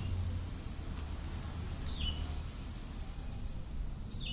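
A bird's short falling chirp, repeated about every two seconds over a steady low rumble.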